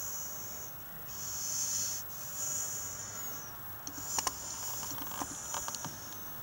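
A sleeping Staffordshire bull terrier puppy breathing, each breath a short hiss about once a second, with a few small clicks in the second half.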